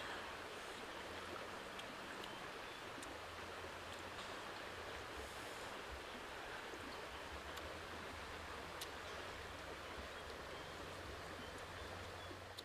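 Shallow stream running over rocks, a steady rushing with a few faint clicks.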